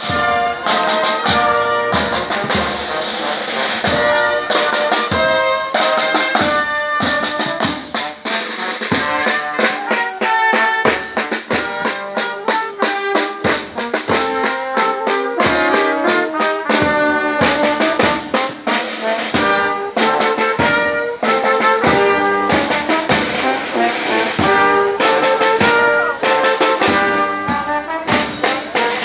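Brass band with trumpets playing a melody in the street, loud and continuous, with drum beats underneath.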